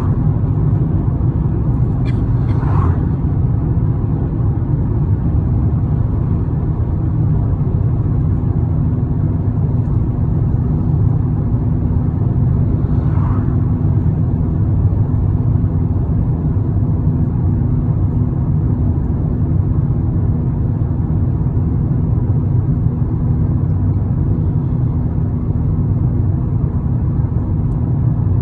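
Steady low rumble of a road vehicle driving, with a faint even hum joining in about a third of the way through.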